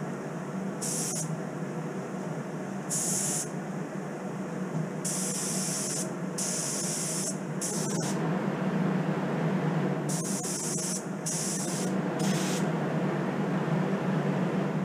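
Gravity-feed spray gun spraying Cerakote coating in short trigger bursts, about eight of them, each a sharp hiss of air lasting under a second, over a steady low hum.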